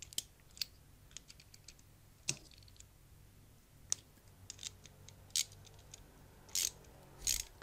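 Faint, scattered metallic clicks of a ratchet wrench and 7 mm socket being handled and turned while tightening the small nuts on a sat-nav cradle's mounting bracket.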